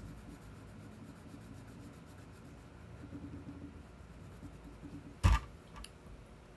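Wax crayon rubbing on paper as a small area is coloured in, faint and steady, with a single sharp knock about five seconds in.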